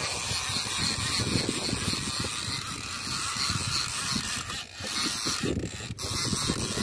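A Daiwa 600H conventional trolling reel being cranked hard against a hooked fish, its gears and ratchet clicking rapidly and unevenly, over a steady hiss of wind and sea.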